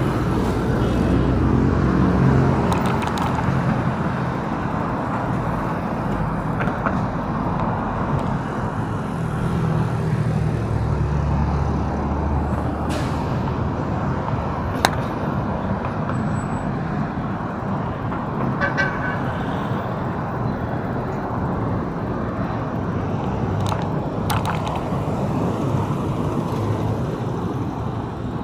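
Busy road traffic: a steady mix of engine and tyre noise from passing cars and trucks, with a few brief sharp sounds here and there.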